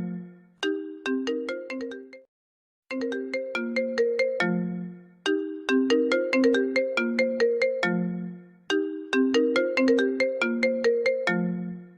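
iPhone ringtone playing: a short phrase of quick notes that ends on a lower held note, repeating about every three and a half seconds. It breaks off briefly about two seconds in, then starts again.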